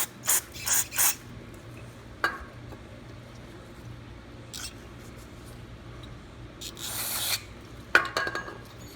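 Short hissing blasts of aerosol cleaner sprayed through a small-engine carburettor's fuel passages to clear dried ethanol deposits: three quick bursts in the first second, a longer spray about seven seconds in, with a few light taps.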